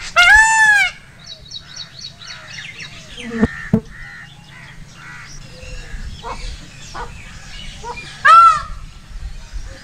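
Male Indian peafowl (peacock) giving two loud calls, each under a second long and rising then falling in pitch: one at the very start and one near the end.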